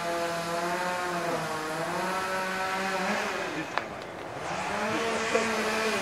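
A motor vehicle engine running steadily on the street. About halfway through it dips, then rises in pitch as it speeds up and holds there, with one sharp click just before.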